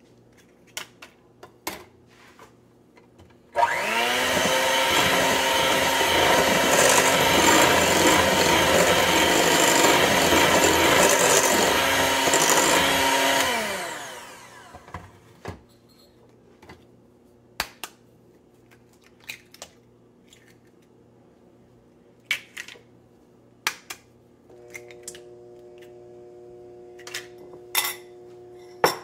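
Electric hand mixer beating an egg into creamed butter and sugar in a glass bowl: the motor starts a few seconds in, runs steadily for about ten seconds, then winds down and stops. Scattered light clicks and taps come before and after it, and a quieter steady hum begins near the end.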